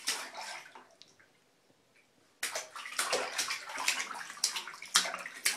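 A baby slapping his hands in the water of a plastic infant bathtub. The splashing dies away, there is a short lull of near quiet, and then quick, continuous splashing starts about two and a half seconds in.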